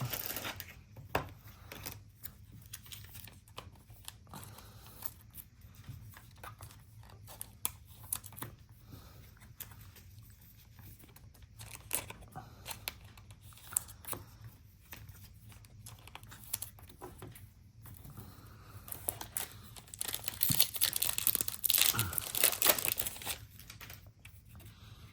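Trading-card pack wrapper being handled and torn open: scattered crinkling and light clicks of cards, with the loudest stretch of tearing and rustling about twenty seconds in.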